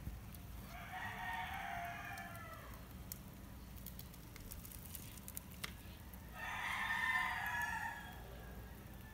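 A rooster crowing twice, each crow about two seconds long, with a few faint clicks between the crows.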